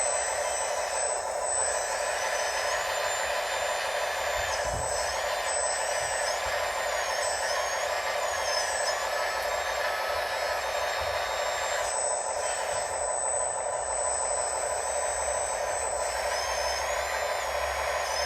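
Electric motors and gearboxes of radio-controlled construction models (excavators, dump trucks, a loader) running together in a steady whir, with high whines that rise and fall as the machines speed up, slow and change direction.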